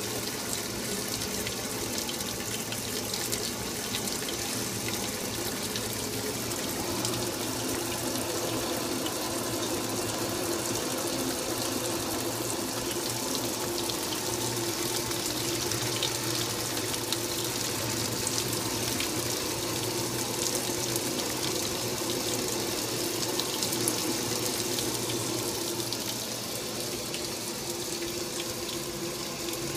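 Old Magic Chef top-load washing machine agitating: continuous sloshing and swishing of water and clothes in the tub over a steady low hum from the machine.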